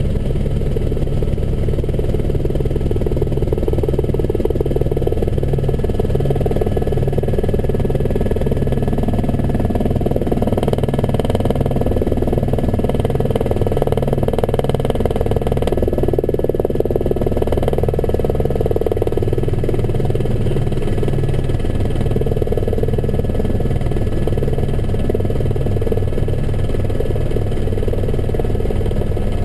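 Helicopter engine and rotor running steadily, heard from inside the cabin: a constant whine over a low, rapid rotor beat.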